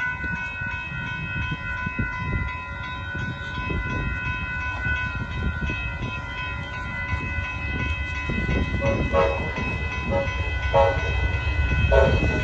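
Amtrak Texas Eagle passenger train passing at a road crossing: a steady rumble of the train running on the rails, with a steady high-pitched tone held throughout. In the second half, a few short pitched sounds come every second or so.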